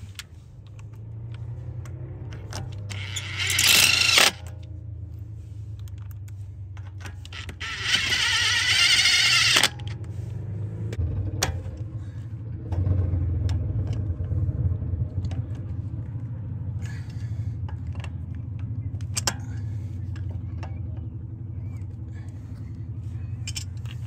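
Pliers levering against a bolt head to pry the grease cap off a front wheel hub: scattered metal clicks, knocks and scrapes. Two loud hissing bursts come about three and eight seconds in, each lasting a second or two and cutting off sharply, over a steady low hum.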